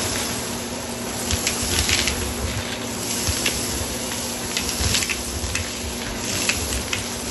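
Stick vacuum running with a steady motor hum as its brush head sucks up dry grains from carpet, the grains rattling and ticking up the wand, with scattered clicks as pennies are knocked by the head.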